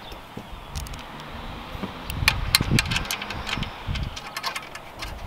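Light metal clicks and clinks with a few dull knocks, clustered between about two and five seconds in, as a steel guide plate is slid into and fitted to the sheet-metal base of a bench blade grinder.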